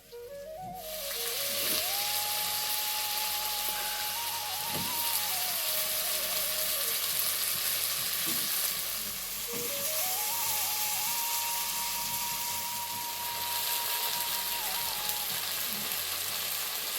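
Food frying in hot oil in a pan, a steady loud sizzle that starts suddenly about a second in, with occasional stirring. A slow single-line melody plays over it.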